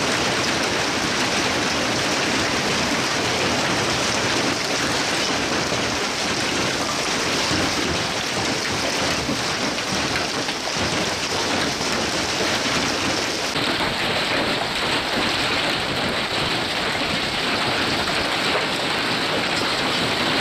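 Large hail and heavy rain falling hard on pavement and parked vehicles, a dense, unbroken hiss. About two-thirds of the way through it turns slightly duller.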